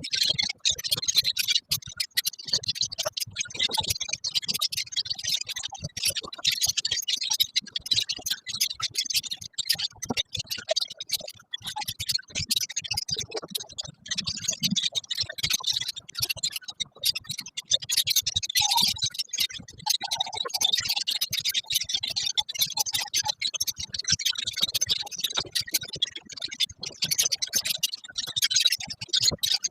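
A colony of lovebirds chattering: a dense, unbroken mass of overlapping shrill chirps and rapid clicks.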